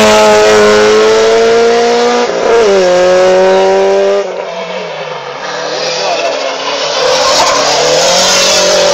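Racing car engine accelerating hard, its pitch climbing, with a quick upshift about two seconds in before it climbs again. About four seconds in the sound drops suddenly, and the engine carries on fainter, its revs rising and falling.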